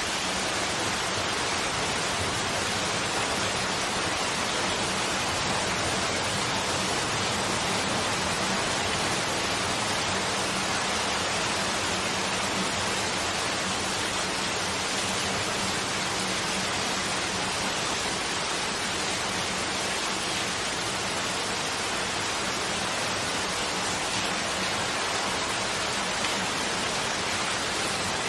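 Steady rain falling, an even hiss that holds at one level without letup.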